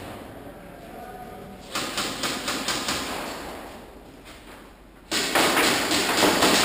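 Airsoft guns firing: a quick run of sharp snaps, about five a second, starting about two seconds in and fading, then a sudden louder, denser rush of snaps and noise near the end.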